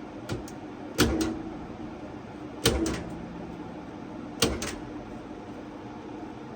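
Impact punch-down tool punching Cat6 wires into a patch panel's terminal block: three sharp spring-loaded snaps, each followed by a quieter click, as the tool seats and cuts a wire.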